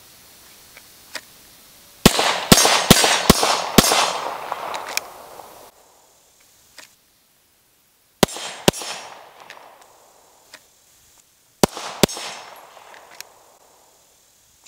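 Ruger 9mm semi-automatic pistol fired nine times, each shot followed by echo rolling away: a quick string of five shots about two seconds in, then a pair of shots about halfway through, and another pair near the end.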